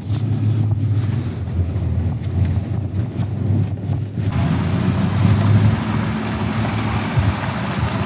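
Pickup truck driving on a snowy road, heard from inside the cab: a steady low engine and road rumble, with a rushing noise of wind and tyres rising over it about four seconds in.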